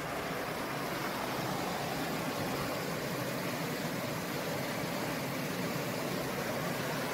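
Steady rushing of a fast river running over rocky rapids.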